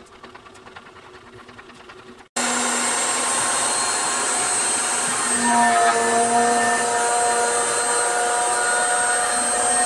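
Makita 2012NB portable thickness planer running and cutting a rough, weathered wooden slab: a loud, steady machine noise with a high whine. It comes in abruptly about two and a half seconds in, after a quieter stretch.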